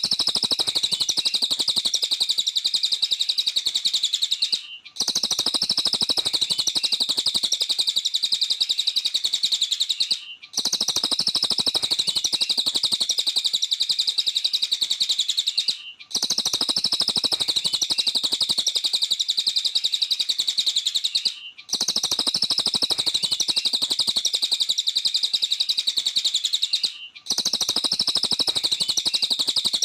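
A cililin songbird singing continuously in a fast, high, unbroken stream of chirps. The song is a looped recording that cuts out briefly and restarts about every five and a half seconds.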